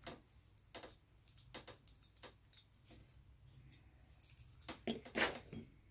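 Scattered light clicks and knocks as a small hand tap and a metal carburettor body are handled on a workbench, with a few louder knocks about five seconds in.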